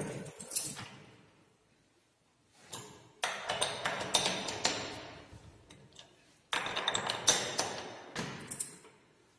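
Two bouts of sharp metallic tapping and clicking in a machine shop, the first about three seconds in and the second about six and a half seconds in. Each starts suddenly and dies away over about three seconds.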